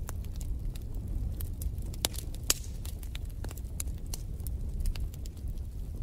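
Wood fire in a fireplace crackling, with irregular sharp pops over a low steady rumble.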